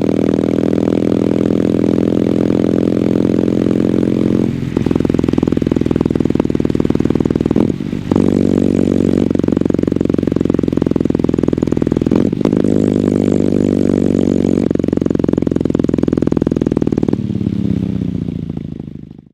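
2022 Kawasaki W800's air-cooled parallel-twin engine running steadily through its stock exhaust, with three brief dips in the note. Near the end the pitch falls and the sound dies away.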